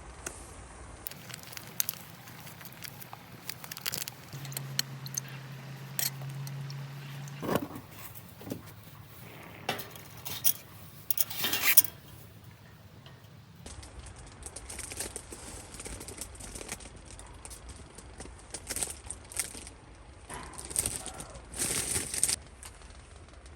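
Small handling sounds: light clinks and taps with rustling and crinkling, coming in scattered bursts, the loudest cluster a little before the middle.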